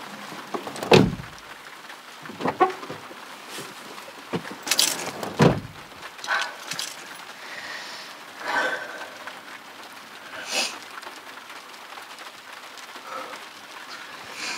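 Two heavy, dull thuds about four and a half seconds apart, among several lighter knocks over a faint hiss.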